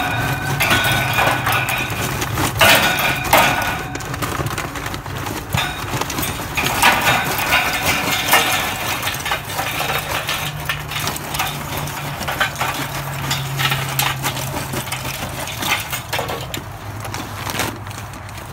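Lumps of lump charcoal poured from a paper bag onto a grill's metal charcoal grate, clattering and clinking against each other and the grate in several runs.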